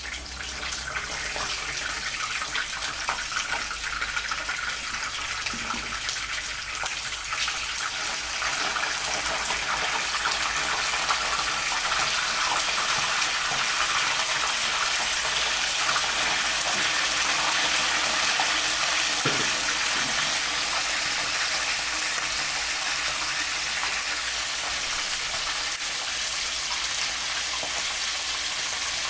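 Pieces of pressure-cooked duck deep-frying in hot oil, a dense steady sizzle that builds up over the first couple of seconds as the duck goes in.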